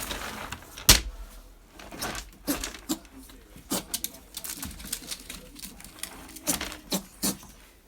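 A pet sneezing over and over: a series of short, sharp sneezes, some in quick pairs, the loudest about a second in.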